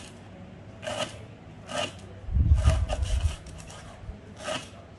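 Kitchen knife chopping on a wooden cutting board, one sharp knock about every second, with a quicker run of heavier chops and a deep thud about two and a half seconds in.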